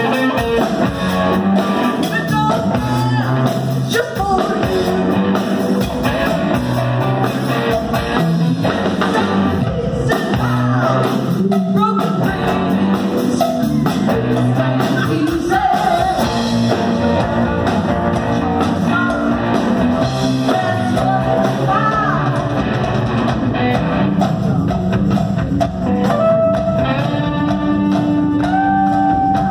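Live rock band playing: a Zemaitis pearl-front electric guitar and drums, with a woman singing.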